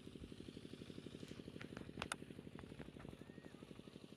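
A small engine idling, with a steady fast low pulse of about eight or nine beats a second. A few faint clicks come near the middle, and a short chirp about three seconds in.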